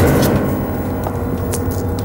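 Dramatic suspense score: a steady low rumbling drone, with a couple of faint sharp metallic strikes about a second and a half in.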